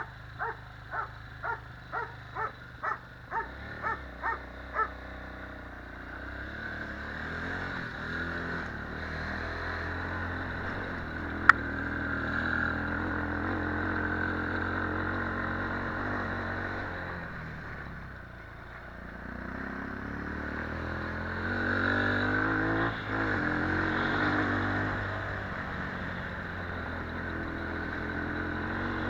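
Rollei 425 quad ATV's engine running, rising and falling in pitch and level as it is ridden, easing off about two-thirds of the way through and then picking up again. It is preceded by a run of about ten short, evenly spaced beeps, about two a second, and a single sharp click comes a little before the middle.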